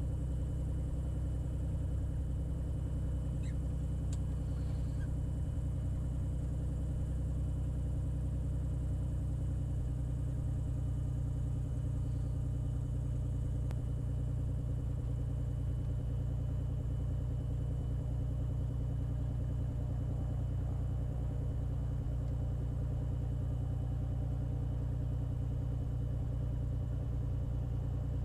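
Beechcraft Bonanza's six-cylinder piston engine and propeller running steadily at low taxi power, heard from inside the cockpit as the plane taxis.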